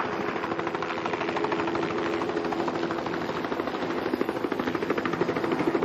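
A machine's fast, steady chopping pulse with a constant droning tone over it.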